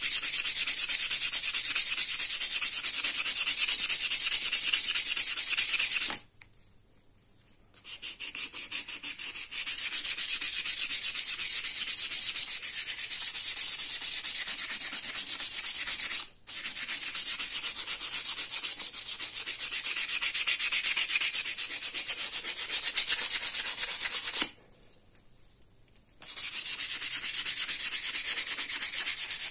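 Sandpaper rubbed by hand in rapid back-and-forth strokes over the metal head of an old sugar breaker (chipping hammer), sanding off rust: a steady, hissing scrub. It stops twice for a second or two, about six seconds in and again near the end, with a brief break in between.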